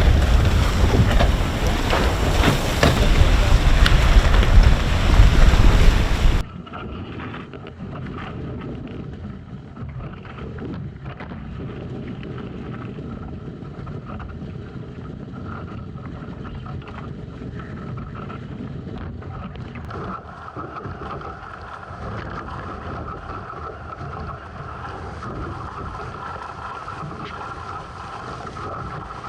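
Strong wind buffeting the microphone on the water for about six seconds, then a sudden cut to a much quieter, steady rushing with a faint steady hum that grows a little stronger in the last third.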